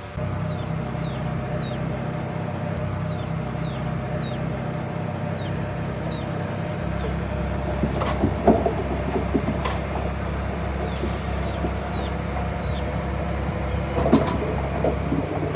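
Heavy diesel earthmoving machine running steadily, with loud clanks and knocks of rock and metal about eight to ten seconds in and again near the end. A short, high, falling chirp repeats about twice a second throughout.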